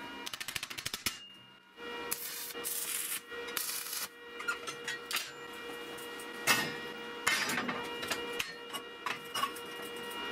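Square steel tubing being handled and set down on a steel workbench: scraping and knocks of metal on metal, the loudest knocks about six and a half and seven seconds in. There is a quick run of clicks in the first second, and a steady hum underneath.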